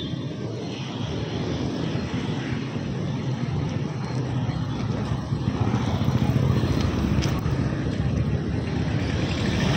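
Road traffic and vehicle engine noise: a steady low drone with hiss over it, growing louder toward the end.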